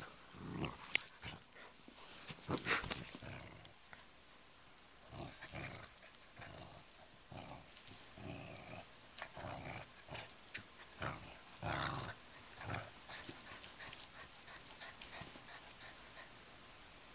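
Cocker spaniel play-growling in repeated irregular bursts while tugging on a rope pull toy.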